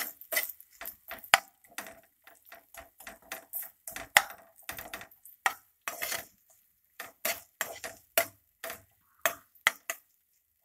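A slotted spatula scraping and knocking against a nonstick frying pan while sliced onions are stirred, in quick irregular strokes of about two or three a second with brief pauses.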